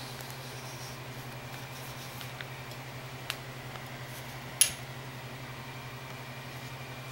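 Spring-hinged metal bangle bracelet snapping shut: one sharp metallic click with a brief ring about four and a half seconds in, after a couple of fainter ticks of handling. A steady low hum runs underneath.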